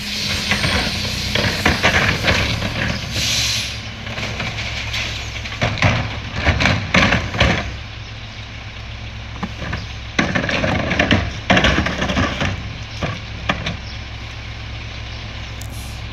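Mack LE rear-loader garbage truck's diesel engine idling steadily, with bursts of clattering as carts of recyclables are tipped into the rear hopper. A short hiss of air about three seconds in.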